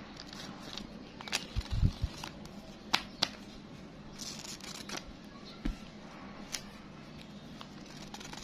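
A bundle of crisp new paper banknotes being riffled and bent by hand, with a handful of sharp paper snaps and a few dull thumps from handling about two seconds in.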